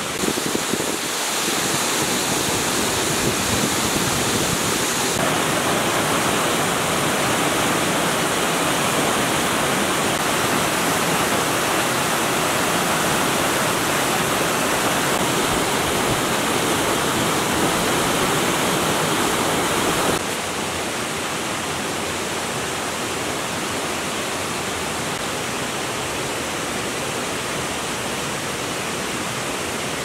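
Waterfall water rushing, a steady even noise. It steps up or down in level a few times: about one, five and twenty seconds in.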